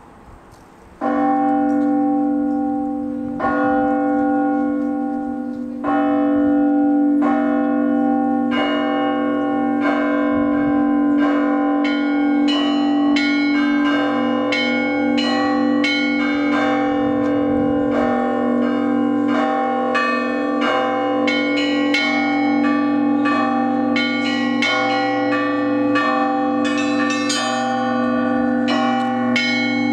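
Russian Orthodox church bells hand-rung by a bell ringer pulling ropes. It opens with single strokes a couple of seconds apart, then smaller, higher bells join in a quickening, dense peal over a sustained low hum.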